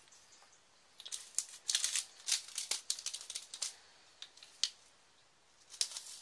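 Loose diamond-painting drills, small plastic rhinestones, rattling and clicking in a plastic drill tray as it is shaken and tipped. A quick run of rattles lasts a couple of seconds, then come a few single clicks and another short burst near the end.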